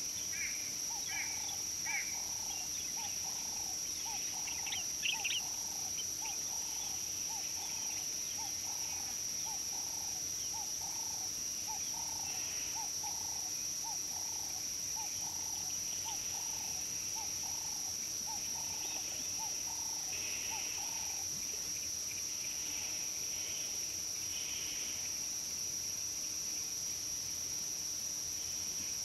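Bush ambience: a steady high-pitched drone, an animal call repeated evenly at about one and a half per second through the first two-thirds, and short bird chirps in the first few seconds.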